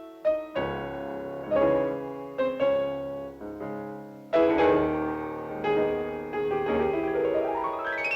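Piano music: struck chords and notes that ring and fade, with a quick upward run of notes near the end.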